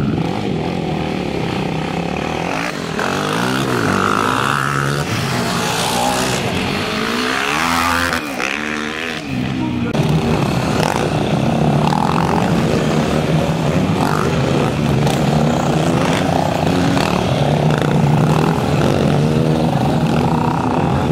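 Several sport quad (ATV) engines revving on a race start line, their pitch rising and falling, then quads racing on the dirt track with engine sound that steadies after an abrupt change about halfway through.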